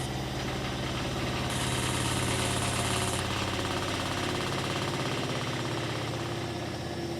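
Beko washing machine running, a steady hum with a fast, even pulsing. This is the weird noise the owner is drawing attention to.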